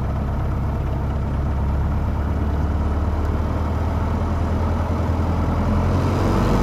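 Cessna 150's four-cylinder Continental O-200 engine running steadily at low power, a deep even hum, shortly before full takeoff power is applied.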